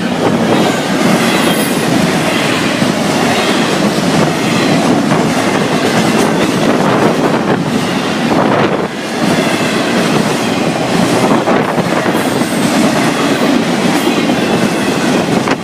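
Florida East Coast Railway freight cars rolling past close by: a loud, steady rush and rattle of steel wheels on the rail.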